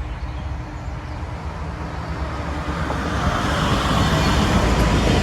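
Diesel-hauled freight train approaching; the locomotive's engine and the rumble of the wheels grow steadily louder from about halfway through.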